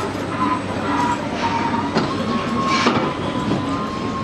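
Busy railway station concourse ambience: a general hubbub with a steady high-pitched whine running through and a few brief knocks.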